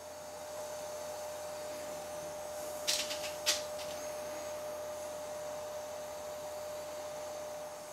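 Gas torch flame hissing steadily as it heats carbide-tipped steel tool shanks for silver brazing, with a constant high hum alongside. Two short sharp clicks come about three seconds in, half a second apart.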